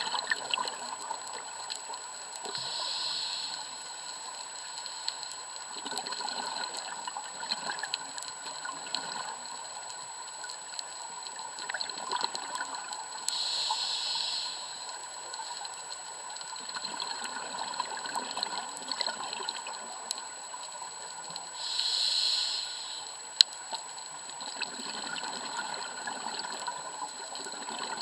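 Underwater sound picked up through an action camera's housing: a steady crackle of small clicks and hiss. Three times, about 3, 14 and 22 seconds in, a scuba regulator's exhaled bubbles burst out for about a second each.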